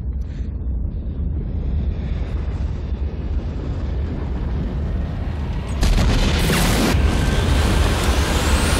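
Film sound effects of a volcanic disaster: a deep, steady rumble, then about six seconds in a sudden loud blast of explosions and roaring fire, with a rising whoosh near the end.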